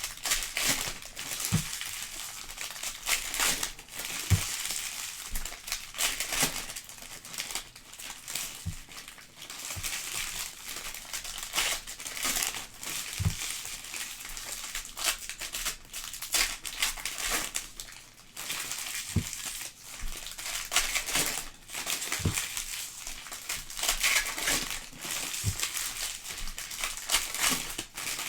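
Foil trading-card pack wrappers crinkling and crackling as packs are torn open and cards are pulled out, with a few soft low knocks now and then.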